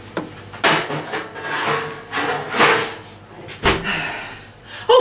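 Rubbing and scraping strokes with a few knocks, the loudest a sharp knock about three and a half seconds in.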